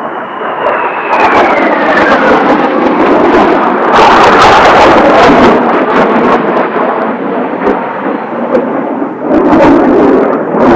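Kawasaki T-4 jet trainers passing low overhead: a turbofan whine dropping in pitch as a jet goes by, then a loud jet roar that swells twice, about four seconds in and again near the end.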